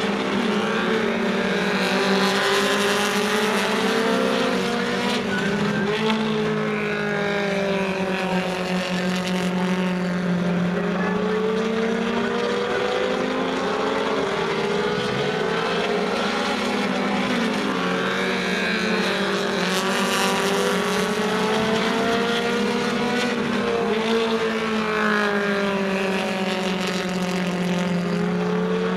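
A pack of four-cylinder dirt-track stock cars racing around the oval, several engines running together. Their pitch rises and falls over and over, every several seconds, as they come off and back onto the throttle around the track.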